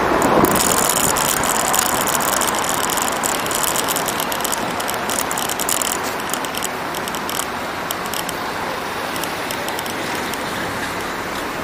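Car driving slowly in town traffic, heard from a microphone mounted outside on its bonnet: steady road and engine noise with a rapid, irregular clicking rattle that dies away about seven seconds in.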